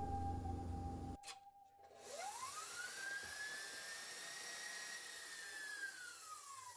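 KitchenAid stand mixer's electric motor whining as it drives a wire whisk through cream. The pitch rises quickly as the motor speeds up, holds steady, and sags lower near the end. Fading background music and a single click come just before the whine.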